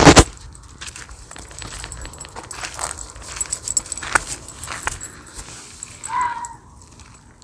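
Handling noise on a recording device: a loud knock at the start, then scattered clicks and rustling. About six seconds in, a brief faint pitched call from an unidentified animal.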